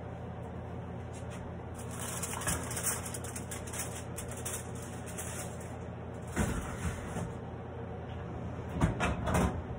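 A foil-covered baking pan being put into an oven: several knocks and clatter from the oven door and rack, the loudest late on, over a steady low hum.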